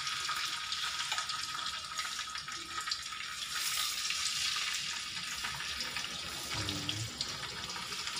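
Boneless milkfish pieces sizzling steadily in hot oil in a wok.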